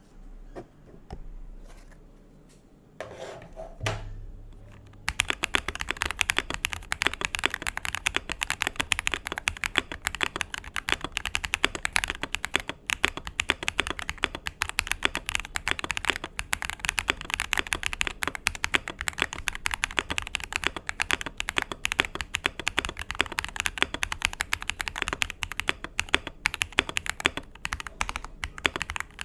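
Akko MOD007 PC mechanical keyboard, a prebuilt polycarbonate-cased board, being typed on fast and continuously. The typing starts about five seconds in, after a few quieter knocks, and then runs as a dense stream of keystrokes.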